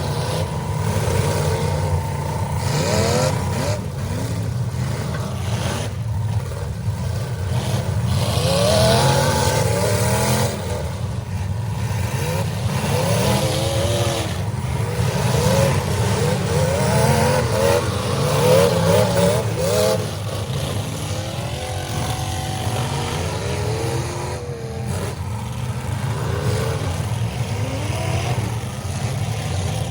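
Several demolition derby cars' engines revving hard together, their pitch rising and falling again and again as the cars accelerate and back up in the arena.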